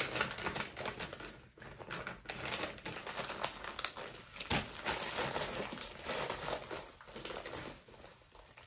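Plastic soft-bait packages crinkling and rustling as they are handled and sorted through, with irregular light clicks and crackles.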